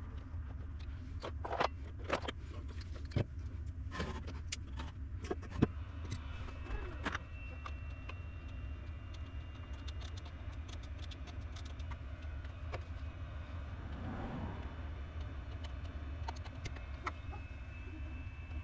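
Scattered light clicks and knocks of small objects being handled, mostly in the first six seconds, over a steady low hum. A faint thin high whine comes and goes.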